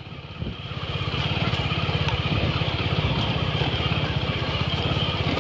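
Motorcycle engine running while the bike rides along, coming up in level over the first second as the throttle opens and then holding a steady, fast, even beat.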